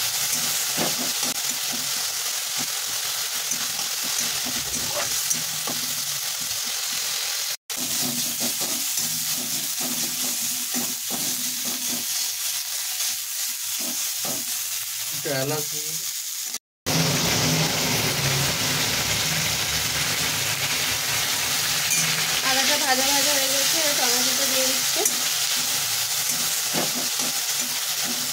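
Chopped tomatoes and ginger sizzling in hot oil in a wok, stirred with a metal spatula that clicks and scrapes against the pan. The sizzle is steady and breaks off briefly twice.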